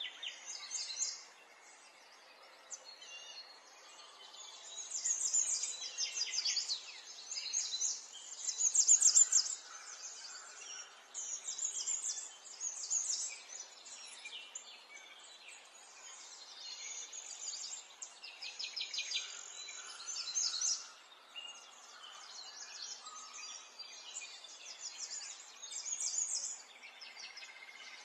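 Small songbirds chirping and twittering in quick high bursts every second or two over a faint steady hiss.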